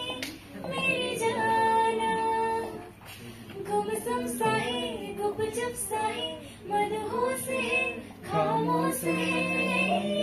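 A woman singing into a handheld microphone, holding several long notes.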